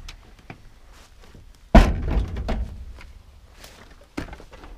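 A heavy thump about two seconds in, followed by a short run of knocks and rattles, and another knock near the end: a pickup's bench seat being wrestled out of the cab, banging against the seat frame and door opening.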